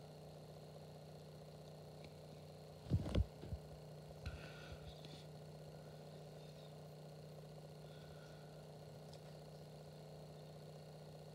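Faint room tone with a steady low hum. About three seconds in come two quick low thumps, followed by a few softer knocks.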